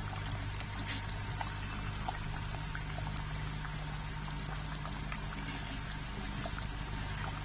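Fish curry simmering in a pan: a steady hiss with small scattered pops and ticks of bubbling gravy, over a steady low hum.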